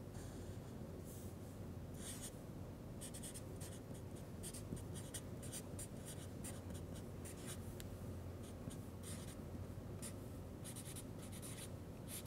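Marker pen writing on flip-chart paper: a faint, irregular run of short strokes.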